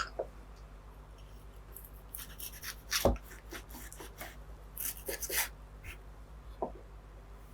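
Kitchen food-prep handling sounds: scattered light clicks and rustling, with one sharper knock about three seconds in, over a low steady hum.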